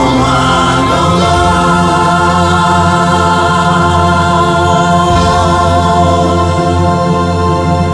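Choral music: a choir singing held chords over a steady accompaniment.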